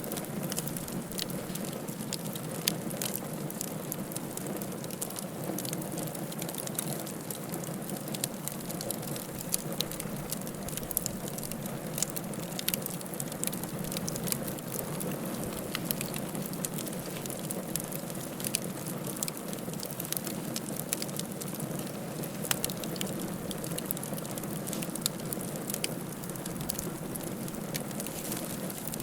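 Wood fire crackling in a fireplace: many irregular sharp pops and snaps over a steady low hiss of burning.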